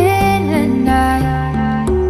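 Background music: a melody with gliding, held notes over a bass line that changes note about every half second.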